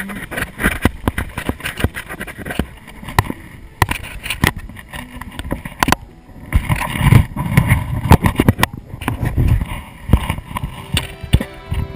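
Mountain bike clattering over a rough dirt trail, its frame and drivetrain rattling with a steady run of clicks and knocks. In the second half a heavy rumbling and buffeting sits on the camera microphone, with more knocks.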